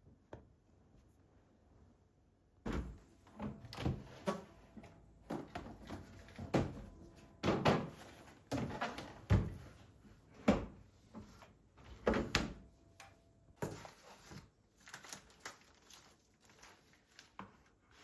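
Irregular knocks, clunks and thuds of household objects being handled, starting about three seconds in, some with a faint ringing tone.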